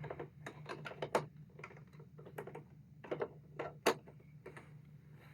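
Plastic Duplo bricks and figures clicking and tapping as they are handled and pressed into place: a dozen or so sharp, irregular clicks, over a steady low hum.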